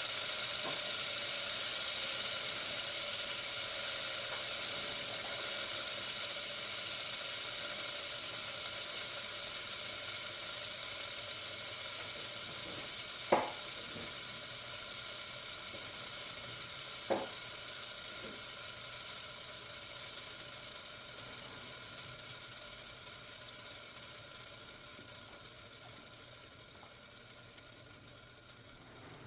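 3D-printed jet-engine fidget spinner whirring as it coasts down, with several steady tones and a high whir that fade gradually. There are two sharp clicks about halfway through.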